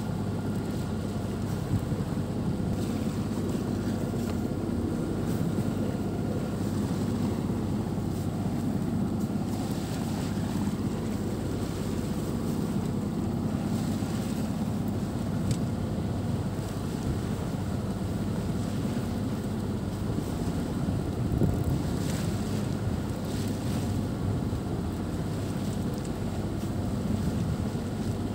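Steady wind buffeting the microphone over the rush of sea water along a sailboat's hull as it sails along.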